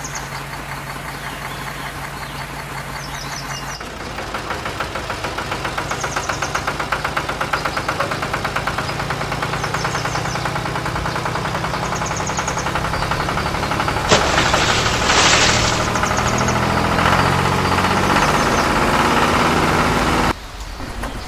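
A heavy vehicle engine running. At first it holds steady low tones; about four seconds in it changes to a fast, even pulsing. A short burst of hiss comes about two-thirds of the way through, and the engine sound cuts off abruptly near the end.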